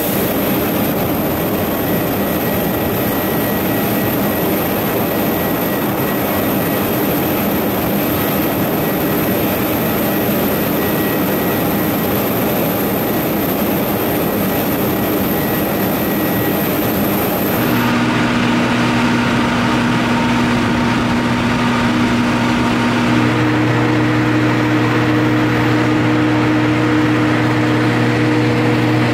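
Steady jet aircraft noise on an airport ramp: a broad rushing hiss with a thin high whine, changing abruptly about two-thirds of the way through to a deeper, louder hum with several steady low tones.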